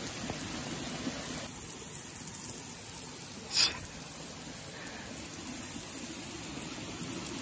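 Steady rushing of a mountain stream, with one short, sharp crack about three and a half seconds in.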